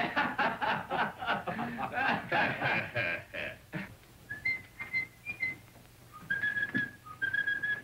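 A man whistling through pursed lips: a few short notes, then two longer held notes near the end.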